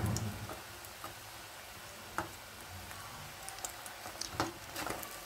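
Batter-coated snake gourd rings deep-frying in hot oil in a metal kadai: a steady sizzle of bubbling oil, with a few light clicks of a slotted metal spoon against the pan.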